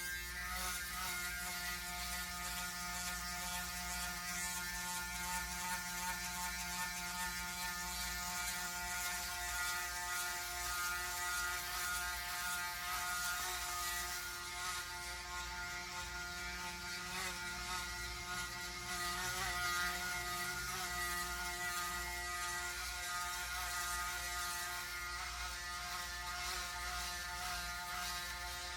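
Braun Series 9 Pro 9465cc electric foil shaver, fitted with a new motor, running steadily with a buzzing hum as it is drawn over a head.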